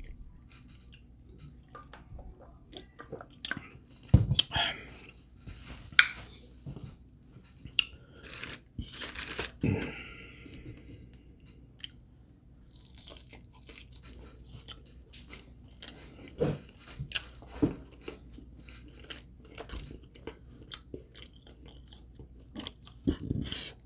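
A person chewing and biting into chicken wings: irregular mouth clicks throughout, with a few louder bites about 4, 6 and 9 seconds in.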